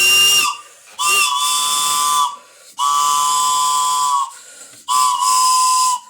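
Mouth-blown train whistle sounding a chord of several close notes over a breathy hiss. A short blast at the start is followed by three blasts of about a second each, with brief gaps between them.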